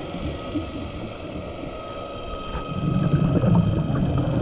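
Underwater ambience picked up by a diver's camera: a steady rushing noise with a faint steady whine, swelling into a louder low rumble about three seconds in.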